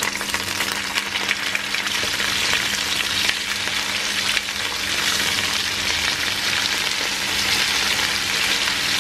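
Chicken breasts frying in hot oil in a pan: a steady sizzle with fine crackling.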